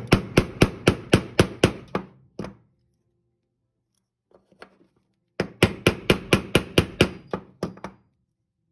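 Tiny hammer tapping an enema check valve into its hole in the fog staff's top, driving it fully home: two runs of quick, even taps, about five a second, with a pause of about three seconds between them.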